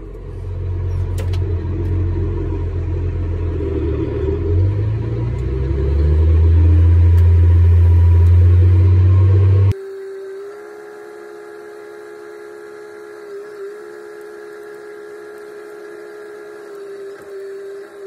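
New Holland T8030 tractor's diesel engine rumbling loudly in the cab while pulling a grain cart, its pitch rising about halfway through the first section as the engine speeds up. About ten seconds in, the sound cuts abruptly to a quieter steady hum with a steady whine.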